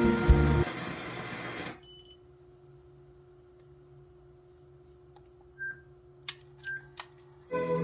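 Music fades out in the first two seconds, leaving a faint steady hum. Two short electronic beeps and a few sharp clicks follow, and the music starts again near the end.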